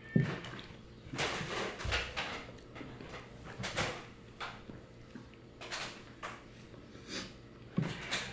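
Eating sounds of someone chewing pancit noodles, coming in irregular short noisy bursts a second or two apart.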